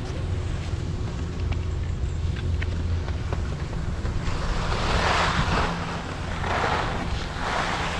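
Wind rumbling on the GoPro microphone, then about halfway through skis carving on groomed snow: a scraping hiss that swells and fades with each of about three turns.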